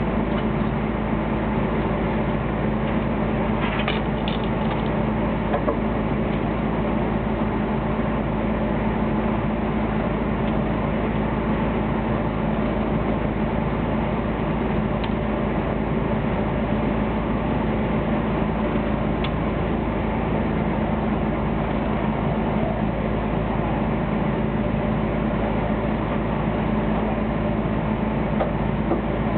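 Fishing boat's engine running with a steady, unchanging drone, with a few faint clicks about four seconds in.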